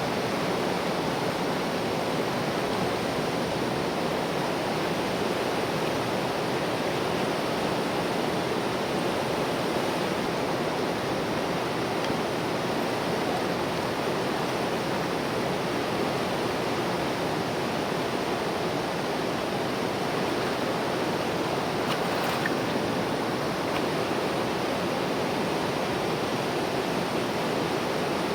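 Mountain river flowing, a steady rush of water.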